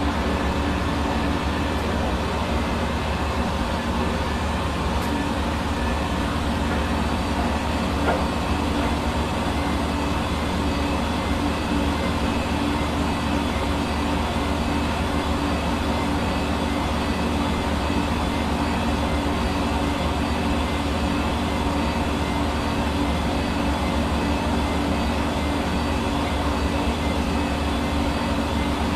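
Hair dryer running steadily: a constant motor-and-fan whir with a steady hum and blowing air that does not change in pitch or level.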